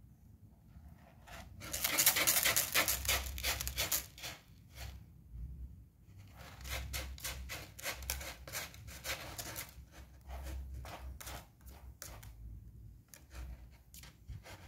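Kitten scratching and digging in granular cat litter: quick scraping strokes in bouts, loudest about two to four seconds in.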